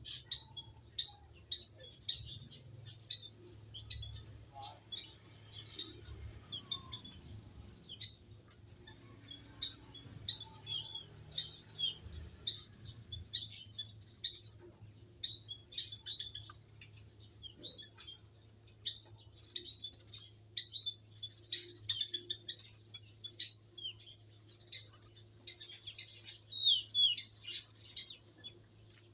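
Small birds chirping and twittering almost without pause: many short, high, quick calls and little trills, several birds at once, loudest near the end. A faint steady low hum runs underneath.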